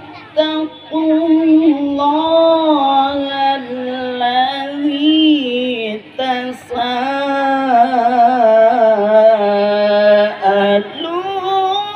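Quran recitation in melodic qiro'ah style by a single reciter in a high, ringing voice, drawing out the word "alladhi" in long, ornamented held notes that bend up and down. There is a brief break about six seconds in. The voice is still recovering from a coughing illness.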